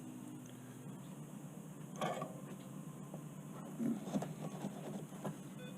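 Faint clicks and knocks of small parts and wires being handled on a workbench, a cluster about two seconds in and more between four and five seconds, over a low steady hum. A short electronic beep near the end.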